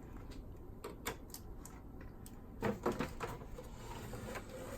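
Light clicks and knocks of plastic parts being handled as a speaker-cable connector is pulled from a boombox's main board, with a short cluster of louder clicks about three seconds in.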